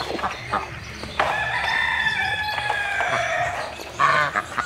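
A rooster crowing: one long held call of about two seconds, starting about a second in, followed by shorter calls near the end.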